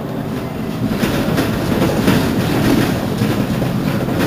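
Mercedes-Benz Citaro C2 city bus idling at a stop, its diesel engine running steadily with a rattle. The sound gets louder about a second in and eases back near the end.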